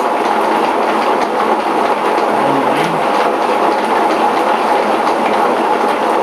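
Milling machine running steadily with a saw blade mounted, set up to saw an aluminium bar.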